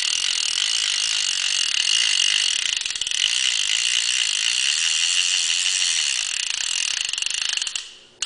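Vintage Penn Senator 114H big-game saltwater reel being cranked by its handle: very fast ratchet clicking that merges into a steady buzz, dying away just before the end. The reel sounds great, in working order.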